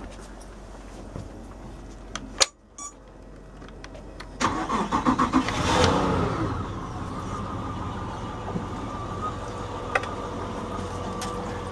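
Honda four-stroke outboard motor started with the key: a click, then the electric starter cranking in quick pulses from about four seconds in, the engine catching after a second or so and settling into a steady idle.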